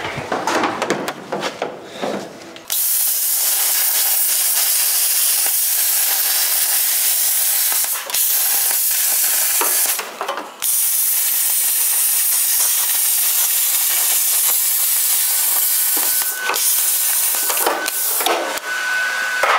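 Plasma cutter making the last cut through the 16-gauge steel floor's transmission tunnel: a loud, steady hiss that starts about three seconds in and breaks off briefly twice before running on to near the end.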